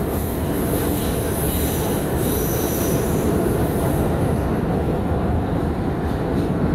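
Bombardier R142 subway train running on the track with a steady rumble of wheels on rail. A high-pitched wheel squeal sounds over the first few seconds and dies away after about halfway.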